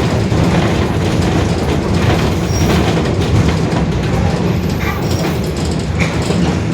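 Mercedes-Benz OF-1721 city bus running, its rear differential droning very loudly over steady road and driveline rumble.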